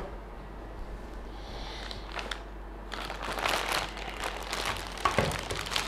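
Clear plastic bag crinkling as hands pick it up and handle it. The crackling starts about three seconds in, in quick irregular bursts.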